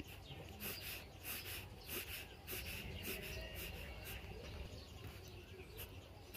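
Graphite pencil scratching across paper in a run of short strokes, about two a second, as parallel hatching lines are drawn.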